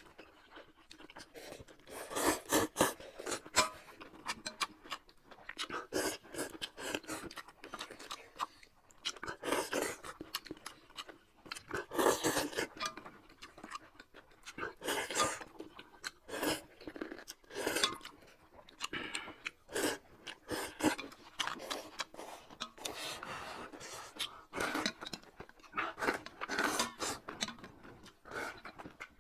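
Two people eating noodles in broth: irregular slurps and chewing, close up.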